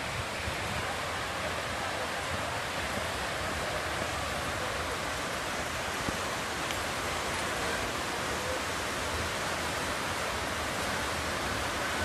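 Steady rushing hiss of a mountain waterfall pouring down a cliff, with one faint tick about six seconds in.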